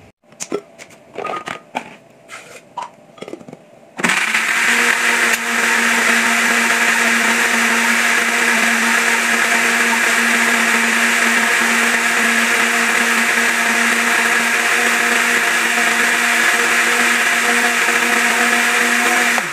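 A few scattered clicks and knocks, then about four seconds in a glass-jar electric countertop blender starts and runs steadily at one speed with an even hum. It is blending garlic and shallots with water into a liquid spice paste.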